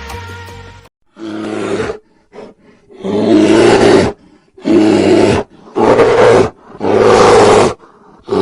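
Bear roaring: five loud roars, each about half a second to a second long, with short gaps between them, and another beginning at the very end. Background music fades out during the first second.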